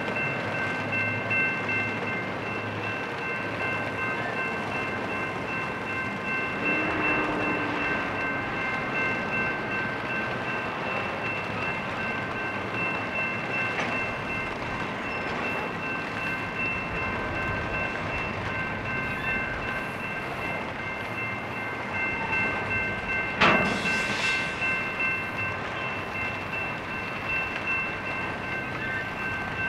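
Slow-moving intermodal freight train rolling past with a steady rumble, with a steady high-pitched squeal running under it. A single sharp bang stands out about 23 seconds in.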